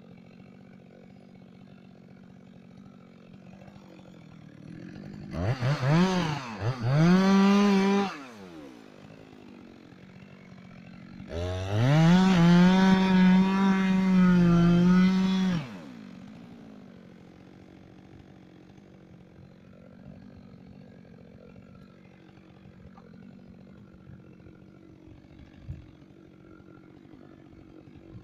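Two-stroke chainsaw revved up to full throttle twice. The first is a short burst that rises, dips and rises again; the second climbs and holds at high revs for about four seconds, then drops back. Between them it is quiet.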